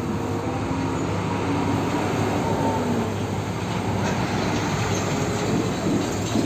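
A heavy fuel tanker truck driving past close by, its diesel engine running under steady road noise.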